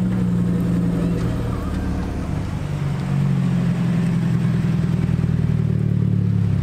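Car engines running at low revs as cars drive slowly past, a Renault Clio hatchback and then a Mazda MX-5 roadster. A steady low engine drone that grows a little louder about three seconds in.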